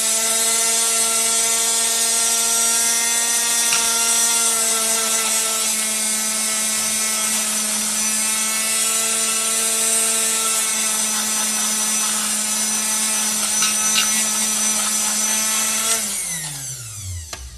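Berman spindle milkshake mixer running with a steady motor whine, blending vanilla ice cream and milk in a stainless steel cup. Near the end it is switched off and the whine falls in pitch as the spindle spins down.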